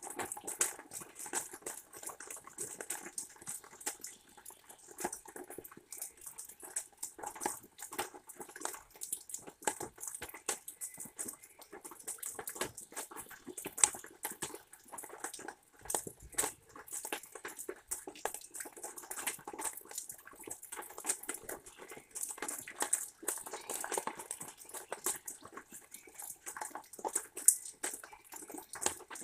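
Dense, irregular clicking and crackling close to the microphone, with a couple of louder single clicks. It comes from a red squirrel shelling sunflower seeds in a feeder tray and from rain dripping around it.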